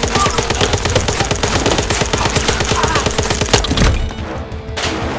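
Rapid, continuous gunfire-style blaster shots over background music, ending with one louder shot and cutting off about four seconds in, leaving only the music.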